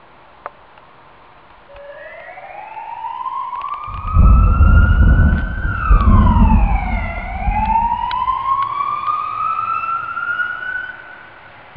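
A siren wailing, its pitch climbing slowly, dropping quickly, then climbing again. From about four seconds in, heavy thunder rumbles underneath it and is louder than the siren.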